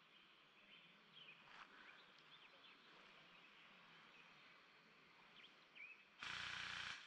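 Quiet outdoor background: a faint steady hiss with scattered short bird chirps. Near the end, a sudden loud burst of hiss lasts under a second and cuts off abruptly.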